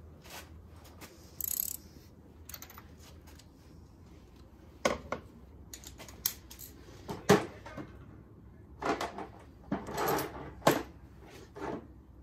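Hand tools being handled at an engine during spark plug work: scattered metallic clicks, clinks and knocks at irregular intervals, with the loudest knocks about seven and ten seconds in.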